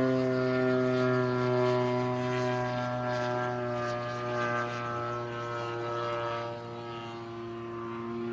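Engine of an RC P-40 Warhawk model plane droning steadily in flight, one constant engine note that grows fainter over the last couple of seconds as the plane flies farther off.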